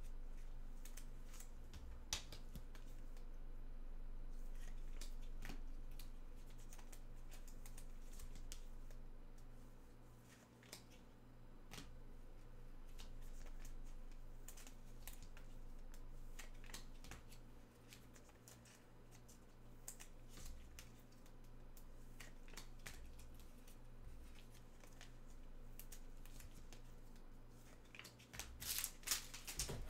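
Trading cards and packs being handled: light scattered clicks and rustles of cards sliding against each other, over a faint steady hum. A brief burst of crinkling packaging comes near the end.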